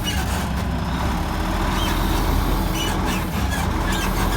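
Heavy grain truck's engine running steadily as the truck, stuck full of corn, slips on snow and ice, with a few short faint high squeaks in the second half.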